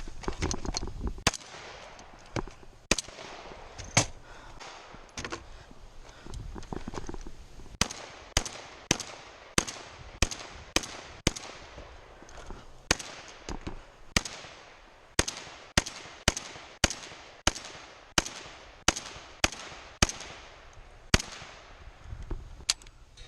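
Rock Island Armory VR-80 semi-automatic 12-gauge shotgun firing a course of fire: three spaced shots, a pause of a few seconds, then a rapid string of shots at about two a second with a couple of brief breaks.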